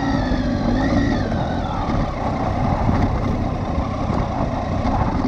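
Triumph Tiger 800XC's three-cylinder engine running as the motorcycle rides slowly along, its pitch rising and falling a little about a second in.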